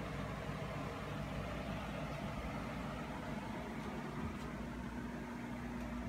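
Steady low mechanical hum of a motor or appliance running, with a low steady tone that sets in about halfway through.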